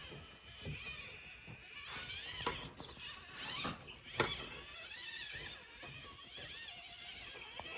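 Micro RC crawler's small brushed Barrage motor and gearbox whining, rising and falling in pitch as it is throttled over rocks, with a few sharp clicks of the tires and chassis against the rock.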